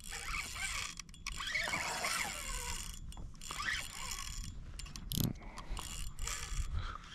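Fishing reel's drag ratcheting as line is pulled off by a running fish.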